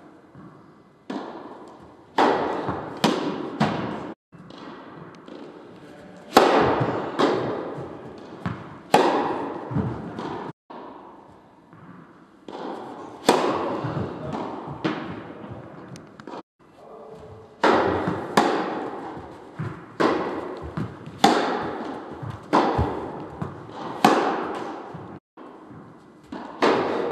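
Tennis ball being hit by rackets and bouncing on the court during rallies: sharp hits about every half second to second, each trailed by echo, with a few abrupt breaks.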